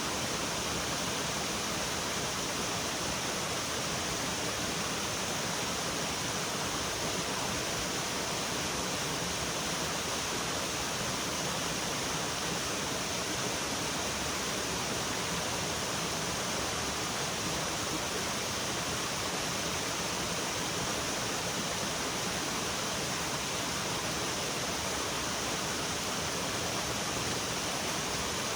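Steady rush of flowing water, like a forest stream or small waterfall, even and unbroken throughout.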